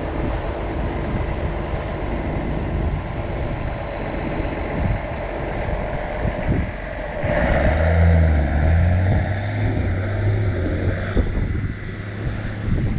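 Low engine rumble with wind buffeting the microphone. A deeper, louder drone comes in about seven seconds in and eases off near the end.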